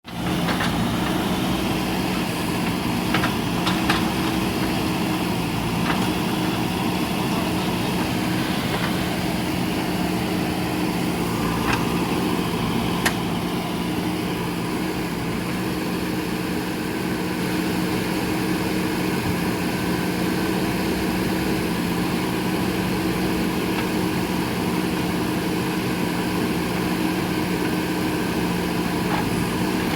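JCB backhoe loader's diesel engine running steadily at an even pitch, with a few sharp metallic knocks from the machine's working parts in the first half.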